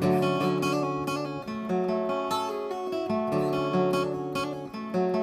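Acoustic guitar strumming chords, a short instrumental passage between a verse and the chorus of a song.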